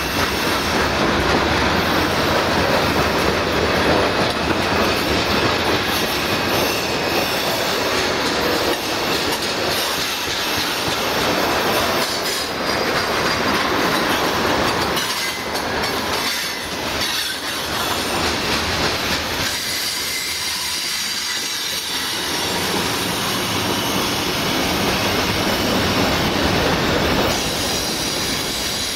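Freight train cars (hoppers, tank cars and boxcars) rolling past close by: steady steel wheel-on-rail rumble and clatter, with a high wheel squeal over it that shows most in the second half.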